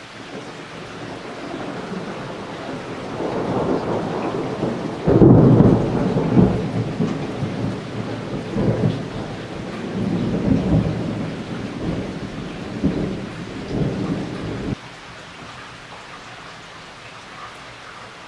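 Thunder rolling in waves, with a loud sharp peal about five seconds in and several further swells of rumbling. About fifteen seconds in the thunder cuts off suddenly, leaving a steady hiss of rain.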